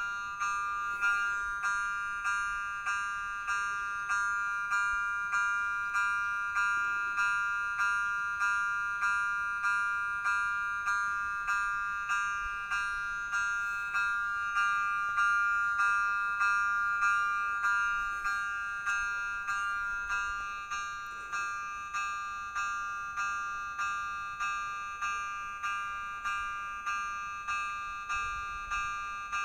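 Electronic warning bell of a pedestrian level crossing, striking a bright bell-like chime over and over, about three strikes every two seconds, each ringing out before the next. It is the warning that a train is coming and the crossing must not be used.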